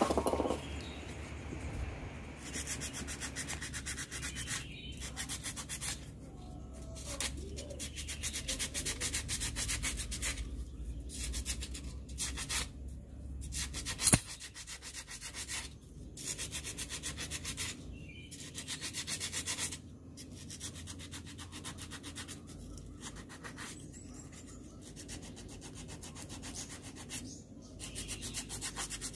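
Fine sandpaper rubbed back and forth on a motorcycle starter-motor armature's commutator, in quick strokes that come in bouts of one to three seconds with short pauses. The sanding clears away the crust and grime that are blamed for the starter sounding rough. A single sharp click comes about halfway through.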